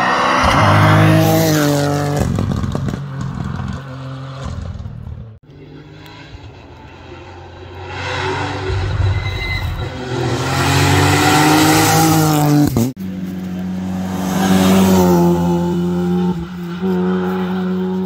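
Rally car engines at full throttle as the cars accelerate past one after another. The engine pitch climbs and drops again and again through the gear changes. The sound cuts abruptly twice, between cars.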